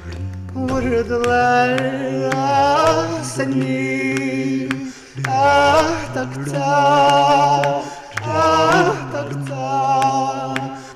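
Male vocalist singing a slow, ornamented melody with vibrato over backing music, in three long phrases.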